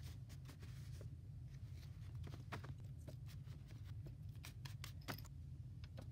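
Faint handling noise: scattered soft clicks and rustles as plush toys are moved across a clear plastic sheet, over a low steady hum.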